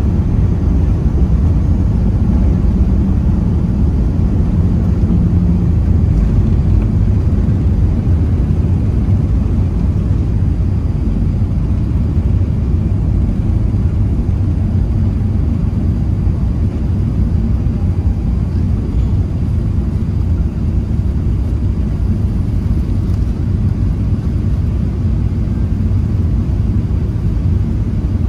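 Cabin noise of an Airbus A380 during takeoff and initial climb: the engines and the rushing air make a steady, deep rumble, heard from inside the cabin.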